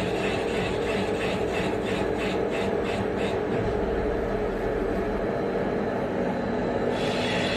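Three-sided CNC milling machine running and cutting valve bodies, a steady machining noise with a hum. A rhythmic pulsing comes about three times a second during the first few seconds and dies away; the higher cutting noise returns near the end.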